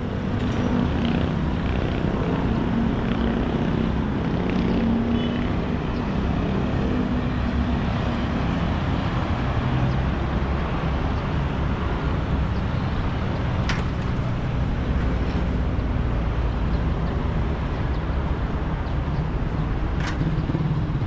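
Road traffic: motor vehicle engines running close by as a steady low rumble, with an engine hum strongest in the first several seconds.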